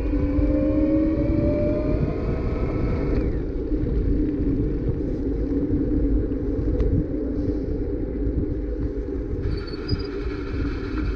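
Wind buffeting a bike-mounted camera's microphone and tyre rumble from a bicycle rolling along an asphalt path. A faint rising hum fades out about three seconds in, and faint steady higher tones come in near the end.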